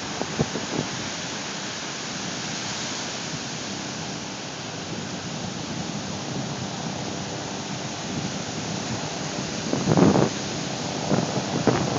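Ocean surf: a steady wash of breaking waves, with a brief louder rumble about ten seconds in.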